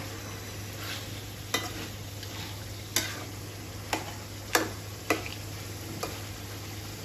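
A metal spatula stirring pieces of beef in a metal karahi of sizzling masala: a steady sizzle of frying, with about half a dozen sharp clacks as the spatula knocks and scrapes the pan.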